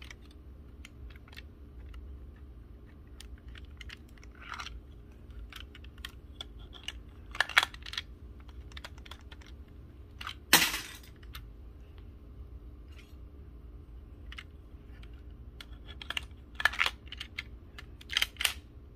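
Lego-brick model of a Glock 18c pistol being worked by hand: plastic bricks clicking and clacking as its parts move, a scatter of small clicks with several louder clacks, the loudest about halfway through.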